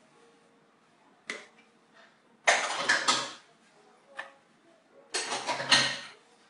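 Kitchen knife working butter on its foil wrapper, with pieces set into a ceramic dish on a kitchen scale: a sharp click, then two short bursts of scraping and rustling each under a second long, with a light tap between them.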